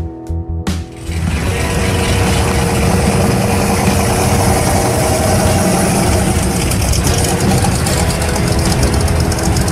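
1970 Dodge Challenger T/A's 340 V8 with three two-barrel carburetors (Six Pack) running as the car drives slowly away, starting about a second in.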